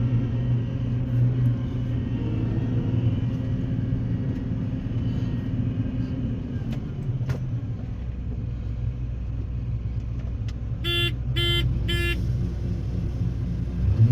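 Farm vehicle engine running steadily at a low drone, with three short beeps about eleven seconds in.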